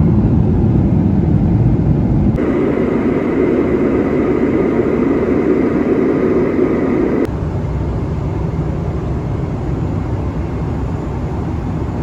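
Steady jet airliner cabin noise in cruise: the hum of the engines and the rush of air heard from inside the cabin. It changes abruptly about two seconds in, and again about seven seconds in.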